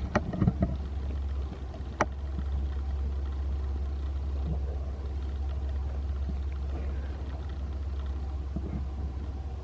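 Power polisher running steadily as it buffs rubbing compound into oxidised car paint, a low even hum, with a sharp click about two seconds in.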